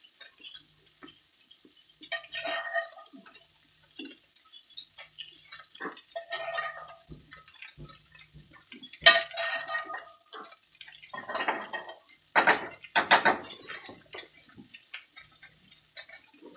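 Metal spoon scooping hot beef fat out of a cast-iron skillet and dripping it into a small metal can: short bursts of scraping, clinks and drips every two to three seconds.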